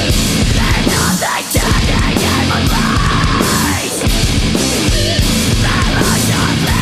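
Heavy metal band playing loud and dense: distorted electric guitars, bass guitar and drum kit.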